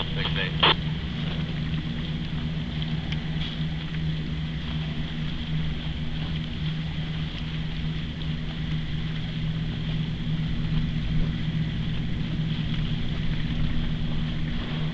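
A steady low mechanical hum, like an engine running, with a couple of short sharp sounds in the first second.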